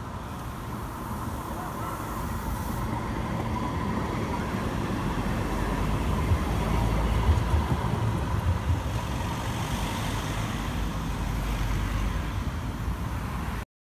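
Electric tram in Bilbao approaching and passing close by: its running noise swells to a low rumble with a few sharp knocks about six to eight seconds in, then eases as it moves away. The sound cuts off suddenly near the end.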